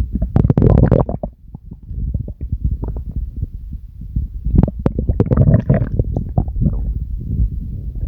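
A person's stomach growling on command: continuous low gurgling and rumbling, with two louder stretches, one about half a second in and another around five to six seconds in.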